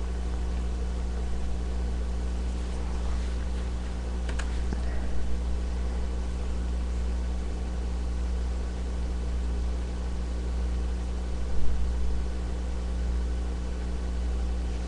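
Steady low background hum with a few even tones, a faint click about four seconds in and a brief low thump near the end.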